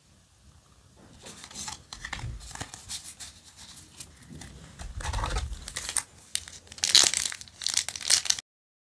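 A stack of Yu-Gi-Oh! trading cards rustles and clicks as it is handled and squared up, then a foil booster pack is torn open and crinkles loudly twice near the end. The sound cuts off abruptly just before the end.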